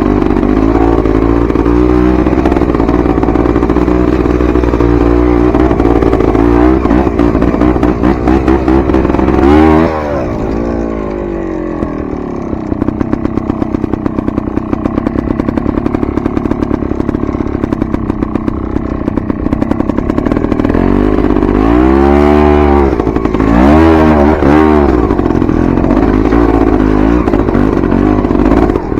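Dirt bike engine running steadily under throttle, with sharp rises and falls in revs near ten seconds in and again past twenty seconds. Between those it eases off briefly.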